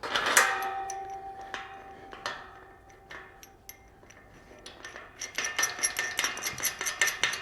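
Steel gate hinge hardware being worked: a sharp metal clank that rings on for a couple of seconds, a few light clicks, then a quick run of small metallic ticks and clinks from about five seconds in.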